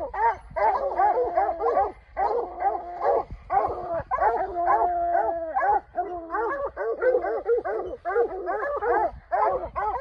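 A pack of bear hounds baying at a treed bear, the treeing chorus that tells the hunter the bear is up a tree. Many dogs call at once: rapid overlapping barks and chops with a few longer drawn-out bawls.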